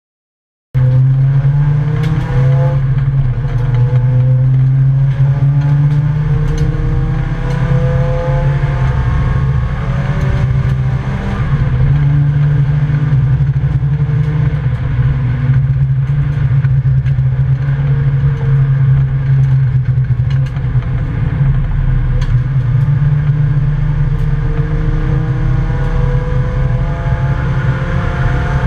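Volvo 855 race car's five-cylinder engine at racing speed, heard from inside the cabin; it starts suddenly just under a second in, and its pitch repeatedly climbs as it pulls through a gear and drops at each shift, over a loud steady drone with scattered rattles.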